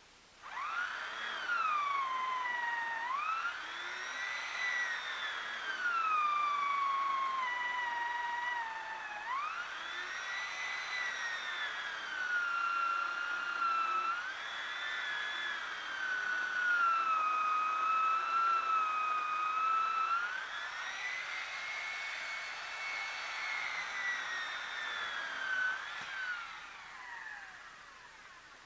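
Chainsaw running at high revs while cutting through a large log: a high whine whose pitch sags and climbs back several times as the saw works through the wood. It winds down and stops near the end.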